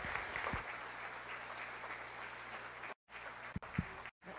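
Audience applauding. The sound cuts out to silence twice briefly, about three and four seconds in, and a couple of low thumps come near the end.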